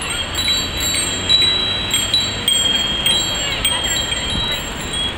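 Bicycle bells ringing again and again, several dings overlapping, as a crowd of cyclists rides past.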